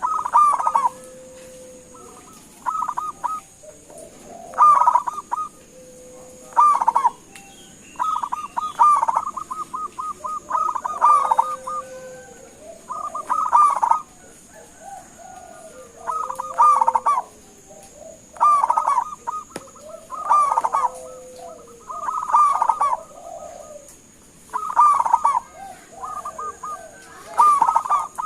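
Zebra dove (perkutut) cooing: short phrases of rapid, stuttering notes repeated every second or two, some ending in a lower held note.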